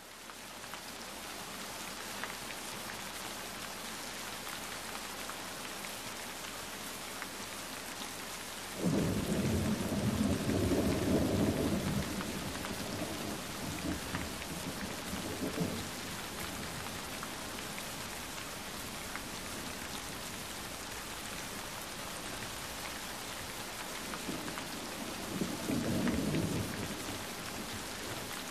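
Steady rain falling, an even hiss, with a low rumble that starts suddenly about nine seconds in and lasts about three seconds, and a second, shorter rumble near the end.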